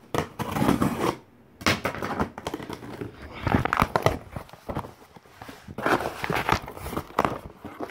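Cardboard box and packaging being handled and pulled open: irregular rustling, scraping and knocks.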